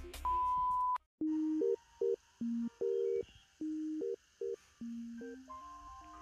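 A steady beep lasting under a second, a brief gap, then a simple lullaby tune played in plain electronic beep tones: loud, short notes at first, softer held notes from about five seconds in.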